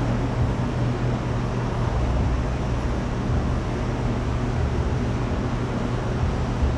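Steady low hum with a constant rushing noise over it, unchanging throughout.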